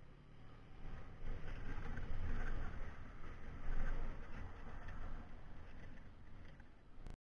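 Kawasaki KLX250 dual-sport motorcycle's single-cylinder engine running as the bike is ridden, louder from about two seconds in. The sound cuts off suddenly near the end.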